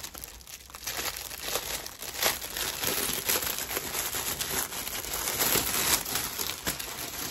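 Clear plastic bag crinkling and crackling as it is handled and pulled open, starting about a second in.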